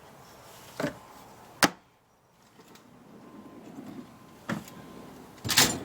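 Metal drawers of a Snap-on tool chest being slid shut and open, with a sharp metal clack about a second and a half in and more knocks near the end.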